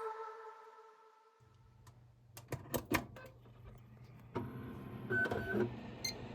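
Background music fading out, then a low steady hum with a quick run of sharp clicks and some handling noise.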